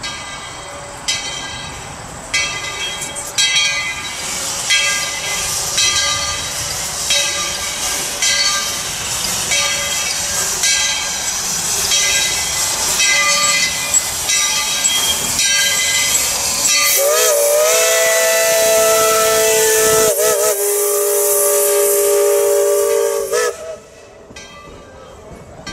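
Narrow-gauge steam locomotive chuffing in a steady rhythm, each exhaust beat a sharp hiss of steam. About two-thirds of the way in comes a long multi-note steam whistle blast of about six seconds, which wavers in pitch as it opens and cuts off abruptly.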